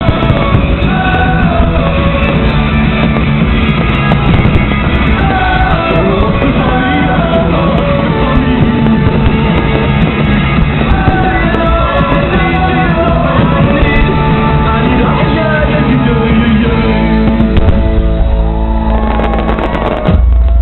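Loud rock song with a singer, played over a sound system; a deep boom comes in near the end.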